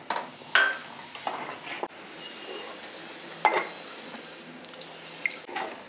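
A metal ladle stirring thick curry in an aluminium pot, clinking and scraping against the pot's sides a handful of times, the sharpest knock about three and a half seconds in.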